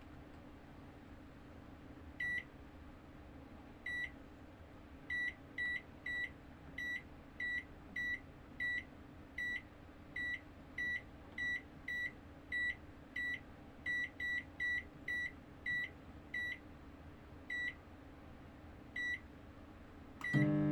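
Microwave oven control panel beeping: about two dozen short, high beeps at uneven intervals, as from keypad presses. Just before the end, two more beeps and the oven starts running with a loud, steady hum.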